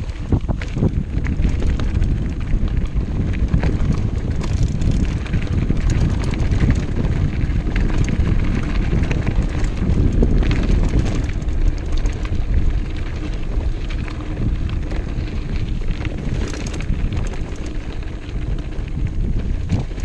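Mountain bike rolling fast down a rough gravel track: wind buffeting the GoPro's microphone, with the tyres crunching over loose stones and the bike rattling and clattering over the bumps.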